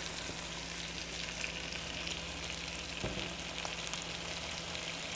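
Chicken breasts sizzling steadily in a hot nonstick skillet, with a soft click about three seconds in.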